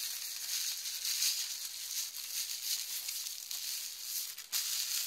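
Plastic bubble wrap rustling and crinkling as a wrapped bottle is handled, with one sharper crackle about four and a half seconds in.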